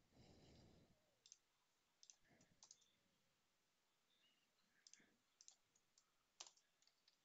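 Near silence with scattered faint computer mouse clicks, the sharpest about six and a half seconds in.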